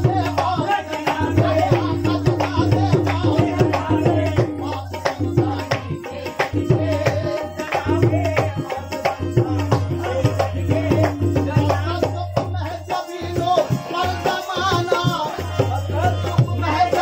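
Live qawwali-style devotional music: rhythmic tabla drumming over sustained harmonium tones.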